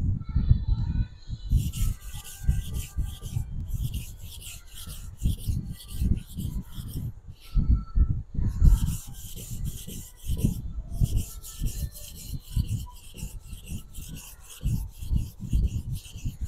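Steel blade face of a nakiri knife scraping back and forth on a wet 600–800 grit whetstone in quick, rhythmic strokes, with a short pause partway through. It is the coarse scratch-removal stage on the side of the blade.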